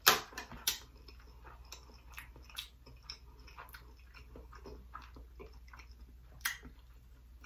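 Close-miked chewing of a mouthful of rice, with wet mouth clicks and lip smacks; a few sharper smacks at the start and one louder click about six and a half seconds in.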